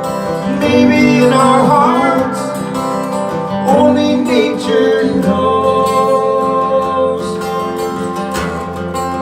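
Live band music led by acoustic guitar, with some singing between the lyric lines.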